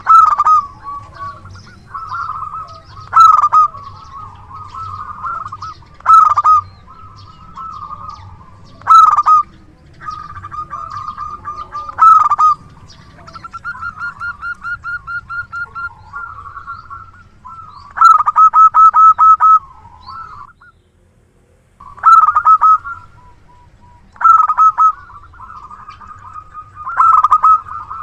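Zebra dove (perkutut) cooing over and over: runs of rapid, rolling coos with a loud accented note about every three seconds, and a brief pause about 21 seconds in.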